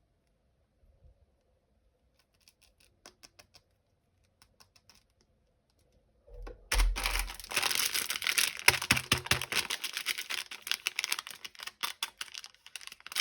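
Plastic packaging being handled: a few light clicks and taps, then from about halfway a loud, dense crackling crinkle as the wrapper is squeezed and opened.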